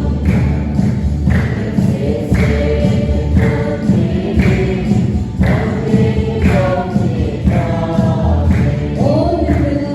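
Background music: a choir singing a gospel-style song over a steady beat.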